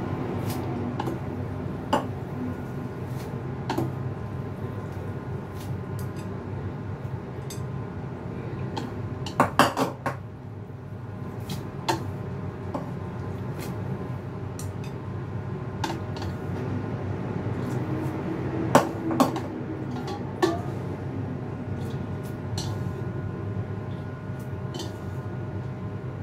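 Kitchen utensils and cookware clinking and knocking: scattered sharp clicks, with louder clusters of knocks about ten seconds in and again around nineteen to twenty seconds, over a steady low background hum.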